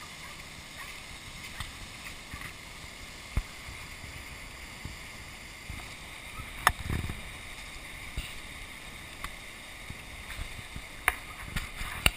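Steady rush of swollen, muddy floodwater pouring over a low dam. A few sharp clicks and knocks come through, and there is a brief low rumble about seven seconds in.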